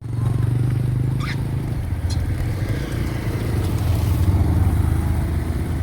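A motor vehicle engine running steadily with a low rumble.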